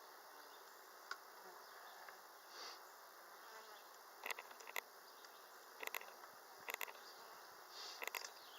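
Honeybee colony buzzing faintly and steadily at an open hive. From about four seconds in come several sharp clicks, mostly in pairs.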